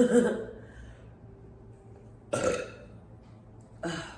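A woman burping: a long burp trailing off in the first half-second, then two shorter burps, one near the middle and one near the end.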